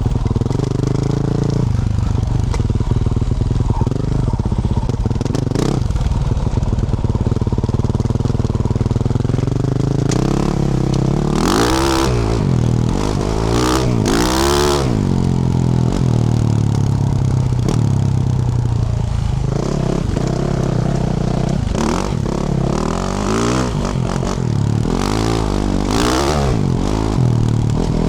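Single-cylinder four-stroke engine of a 2024 Yamaha YZ450F dirt bike fitted with a Yoshimura RS-12 exhaust, ridden off-road. The engine note rises and falls with the throttle, with sharp high revs about 12 and 14 seconds in and again a couple of times near the end, between stretches of lower, steadier running.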